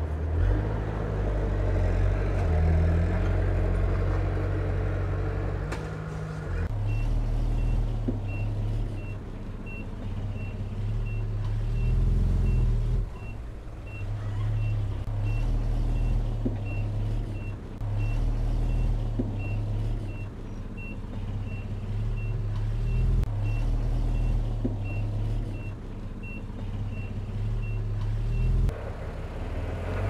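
Bulldozer's diesel engine running under load, with a reversing alarm beeping steadily about one and a half times a second. The beeping starts about seven seconds in and stops shortly before the end, as the machine backs up.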